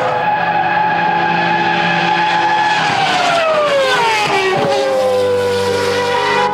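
Formula One car's V10 engine running at high revs, a steady high whine that drops in pitch over about two seconds midway, then starts to climb again.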